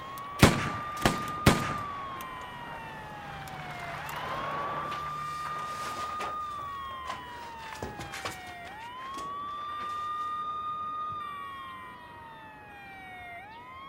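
Three sharp gunshots in quick succession, about a second in, the loudest sounds here. Under and after them a police siren wails, rising quickly, holding high, then sliding slowly down, about every four and a half seconds.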